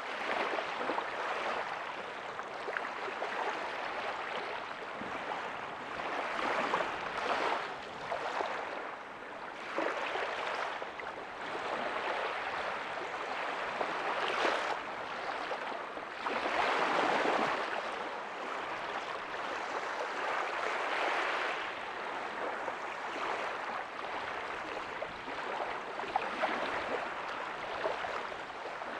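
Small ocean waves breaking softly on a beach and washing up the sand: a continuous rush of surf that swells every few seconds, loudest about two-thirds of the way through.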